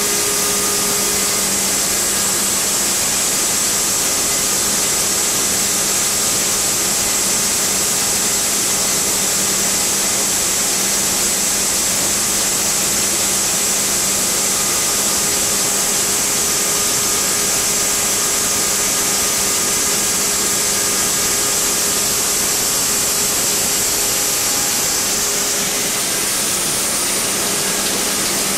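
Diaper and sanitary napkin production line running: a steady, even machine noise with a constant low hum, fainter steady tones and a strong high hiss.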